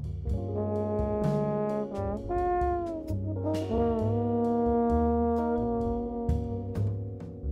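Live jazz band with a trombone playing the lead line, gliding between some notes and holding one long note through the middle, over upright bass and drums with cymbal hits.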